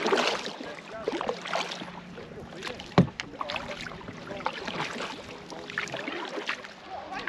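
Canoe paddle strokes, with water splashing and dripping off the blade and lapping at the hull. There is a sharp knock about three seconds in.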